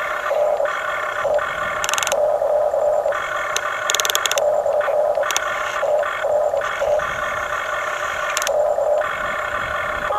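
Electric gear motors of a radio-controlled toy construction machine whining in short spurts, starting and stopping as the controls are worked, with a few brief harsh gear rasps between them.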